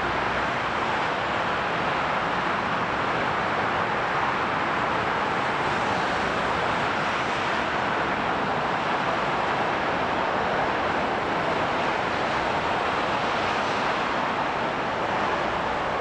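Jet engines of a Eurowings Airbus A320-family airliner running on the runway, heard as a steady, even rush of noise that holds the same level throughout.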